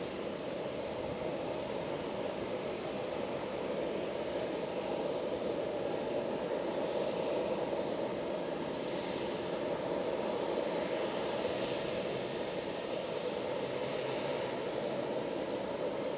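Jet airliner's engines running at low taxi power, a steady distant drone as the aircraft taxis along the airfield, with a faint higher hiss that swells briefly twice.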